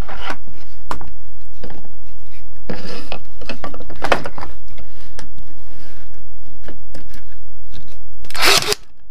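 Ferrex CCT18GW 18V cordless brad nailer firing 50mm brads into a stack of ply, whitewood and hardwood. There are several sharp shots, the loudest near the end, over a steady low hum.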